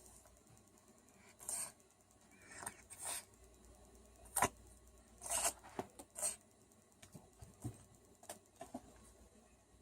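A small animal sneezing and sniffling: a string of short, sharp sneezes and sniffs, the loudest about four and a half seconds in, trailing off into faint small clicks.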